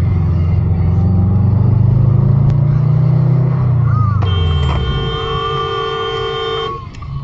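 Car engine accelerating, its note rising and then falling away, followed by a car horn held for about two and a half seconds that cuts off sharply.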